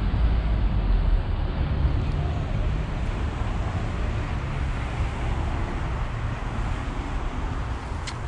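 Wind buffeting the microphone: a steady rushing noise, heaviest in the low end and rising and falling in gusts, with a couple of faint clicks near the end.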